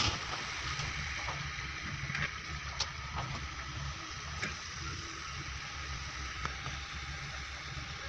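Diesel excavator engine running steadily, with a hiss over its low rumble and a few faint clicks.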